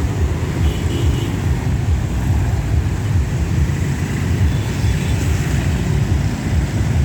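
Steady, loud low rumble of passing vehicles, with faint short high tones about a second in and again about five seconds in.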